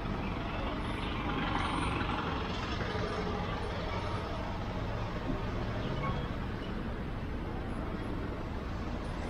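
City street traffic: motor vehicles passing on a road, a steady wash of engine and tyre noise.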